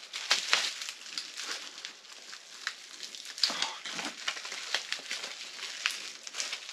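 Bubble-wrap packaging crinkling and crackling as it is worked open by hand, with irregular crackles and a few sharper snaps.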